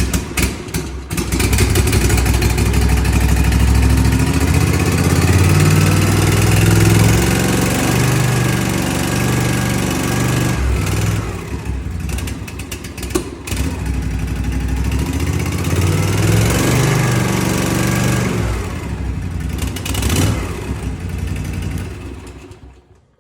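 Kawasaki FR691V V-twin engine on a Cub Cadet ZT1 zero-turn mower running after start-up. It is throttled up and down a few times, testing a newly replaced throttle cable, and is shut off near the end.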